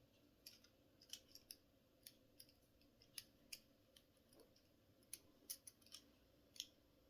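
Faint, irregular metallic clicks of a lock pick working inside the keyhole of TCH 840 handcuffs, picking the lock open.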